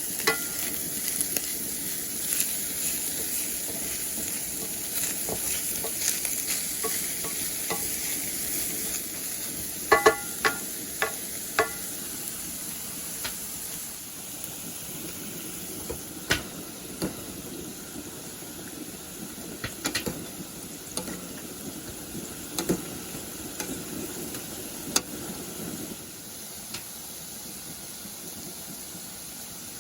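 Food sizzling in a frying pan while a utensil stirs and scrapes it, with scattered sharp taps. About ten seconds in comes a quick run of four ringing metal clinks, and the sizzle grows fainter about a third of the way through.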